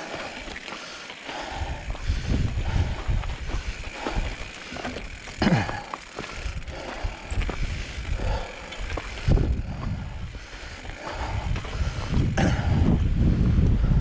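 Mountain bike moving over a rocky dirt trail: tyres crunching on loose stones and the bike rattling, with a low rumble and a few sharp knocks, the loudest about five and nine seconds in.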